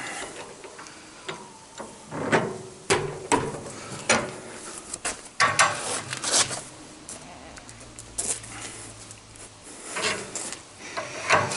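10 mm steel rod and a steel lever bar clanking, knocking and scraping against a bench vise as the rod is bent by hand: irregular metal knocks and rubs, a few of them sharp and loud.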